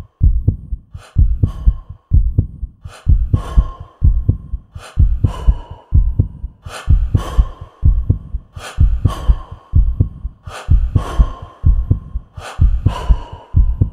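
Heartbeat sound effect: deep paired thumps, lub-dub, recurring about every two seconds, each followed by a fading breathy whoosh.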